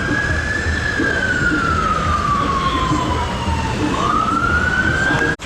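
Ambulance siren on a slow wail: one tone falls slowly for about three seconds, then rises again before it cuts off suddenly near the end, over a low rumble of traffic.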